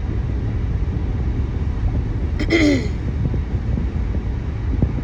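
Steady low background rumble, with a short falling voiced sound from the speaker about two and a half seconds in.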